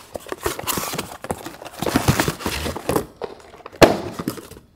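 A cardboard shipping box being torn and pulled open by hand: dense crackling and ripping of the cardboard, with one louder sharp noise near the end.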